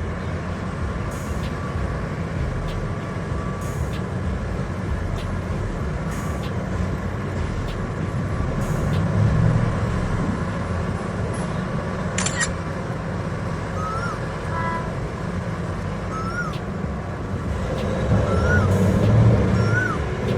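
Heavy mining machinery, a giant excavator working with haul trucks, running with a steady low engine rumble that swells briefly twice. Over it, in the last third, a short high chirp repeats every couple of seconds.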